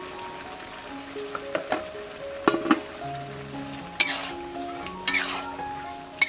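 Metal ladle clanking against a steel wok, several knocks in a row, then a vegetable stir-fry sizzling in two swells as it is stirred, about four and five seconds in. Soft background music runs underneath.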